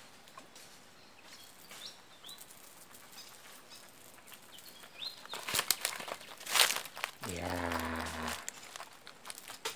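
A hooked small giant trevally splashing and thrashing at the surface a little over halfway through as it is reeled in, then a buzzing sound for about a second as it is lifted out of the water.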